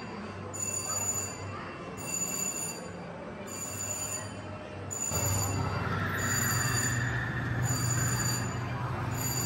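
A high electronic ringing tone that repeats about every one and a half seconds over steady amusement-park hubbub. A louder low rumble sets in about five seconds in.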